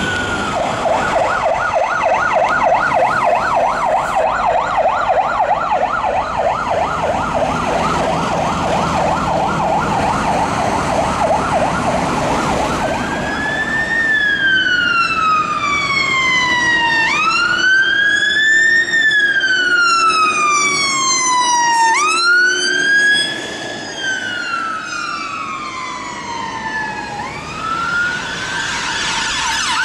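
Fire service vehicle sirens, loud and close: a fast yelp sweeping rapidly up and down for about the first half, then a slow wail rising and falling over a few seconds at a time, with sudden jumps in pitch.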